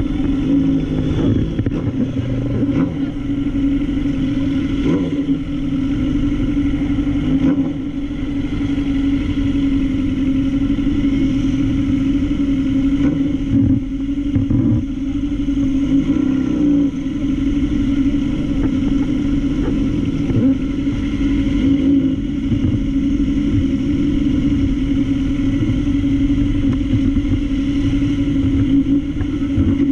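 Sport motorcycle engine running at low, steady revs while the bike rolls slowly in heavy traffic, with a brief wavering of pitch about halfway through.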